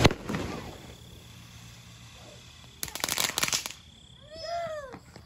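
Firecrackers going off: a sharp bang right at the start, then a rapid burst of cracks about three seconds in.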